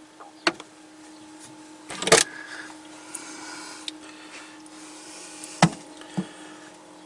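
A few handling knocks and clicks inside a camper van. One louder rattling knock comes about two seconds in and two more knocks near the end, over a steady low hum from the running fans.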